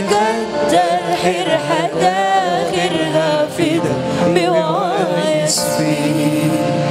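A voice singing a slow, ornamented melody with wavering pitch, over sustained chords from a gambus band.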